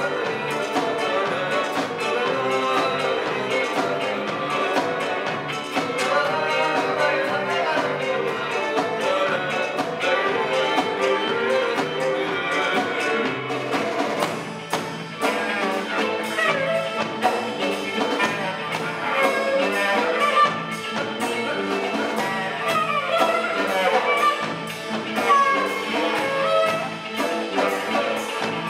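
Live instrumental folk-ensemble music: melody instruments over a steady bass line. Percussion taps grow busier about halfway through.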